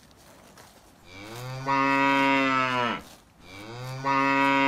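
A cow mooing twice: two long, loud moos about a second apart, each swelling in and then held steady.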